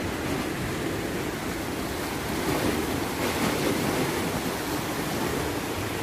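Sea surf washing steadily against a rocky shore, with wind on the microphone.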